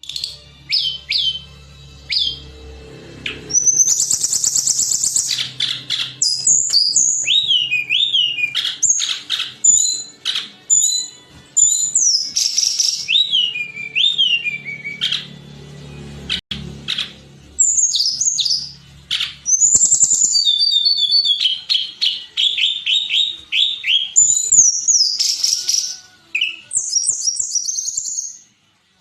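A tledekan gunung songbird sings a long, loud run of high whistled phrases, quick down-slurred notes and rapid chirping trills, pausing briefly between bursts. A low hum sits under the song for the first few seconds and again near the middle.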